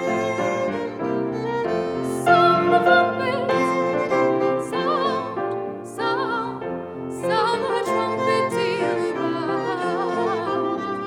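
Classical-style singing with strong vibrato entering about two seconds in over an accompaniment of bowed strings and keyboard.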